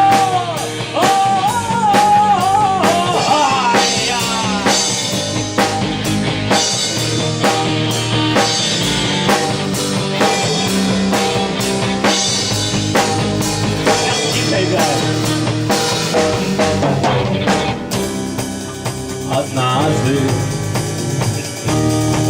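Amateur rock band playing a song: a drum kit keeps a steady beat under guitar and a lead melody. The drums and cymbals drop out about eighteen seconds in, leaving a quieter passage.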